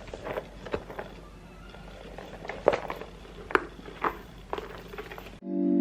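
Handling noise from a leather handbag being opened: scattered small clicks and knocks over a low room hum. Music with sustained keyboard chords cuts in suddenly near the end.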